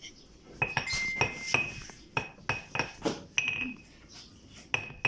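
Pestle pounding garlic in a mortar: about a dozen irregular clinking strikes, each with a short ring, with a pause near the end.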